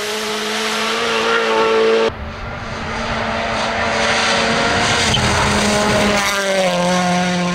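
Toyota GR Yaris Rally1's turbocharged 1.6-litre four-cylinder engine at full throttle on gravel, with the hiss of tyres on loose gravel. The engine holds a steady high note for about two seconds, then cuts abruptly to another pass where the note climbs and grows louder as the car approaches and goes by close.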